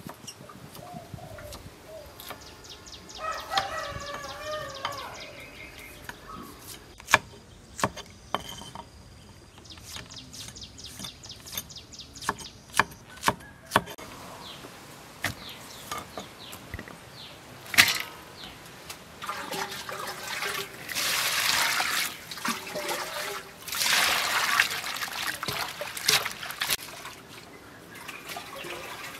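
A knife knocking sharply on a wooden chopping block as lemongrass stalks are sliced. A rooster crows a few seconds in. Near the end come two spells of splashing water as hands work in a bowl.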